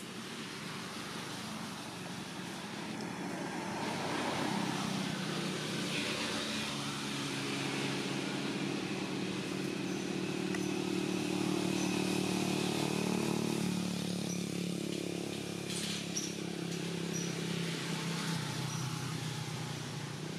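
A motor vehicle engine running steadily with an even, low hum. It grows louder over the first few seconds, then holds.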